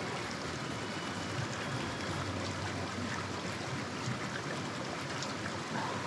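Mountain stream running over rocks, a steady sound of flowing water.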